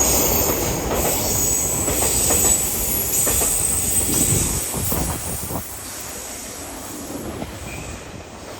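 Freight train wagons rolling past at speed, wheels running with a rumble and a high squeal, with a quick series of clicks over rail joints. The sound drops away sharply about six seconds in.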